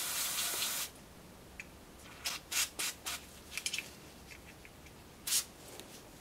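STP carburettor cleaner sprayed from an aerosol can in one burst of just under a second, then short scattered rustles and rubs of hands in thin plastic gloves handling the parts.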